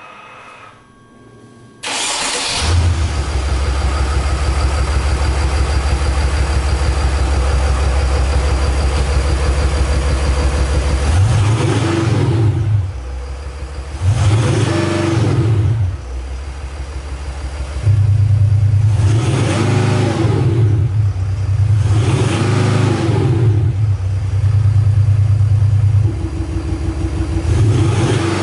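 Mercedes G-class diesel with an active sound booster (Sound Booster Extended) producing engine sound: it starts about two seconds in, settles into a steady deep idle, then is revved several times, each rev swelling and falling back.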